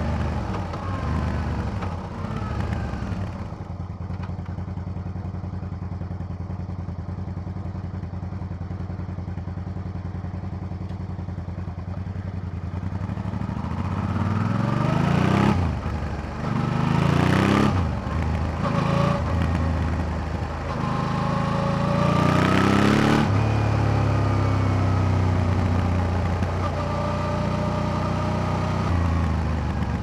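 2005 Suzuki DL650 V-Strom's 645 cc V-twin through its stock silencer, heard close to the exhaust. The engine note falls off the throttle and runs quietly and steadily at low revs, then, about halfway through, the revs climb and drop several times in quick succession before settling into a steady run.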